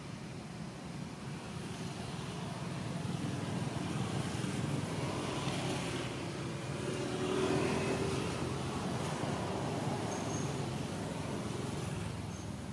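Low, steady rumbling background noise that swells about halfway through and then eases off a little.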